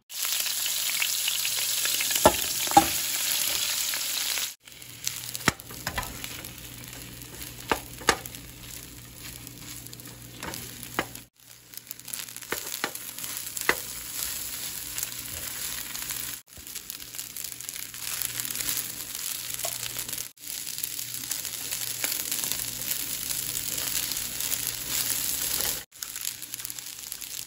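Fried rice with beef cubes sizzling in a hot frying pan as a spatula stirs it, with several sharp scrapes and knocks of the spatula against the pan. The sizzle breaks off briefly a few times.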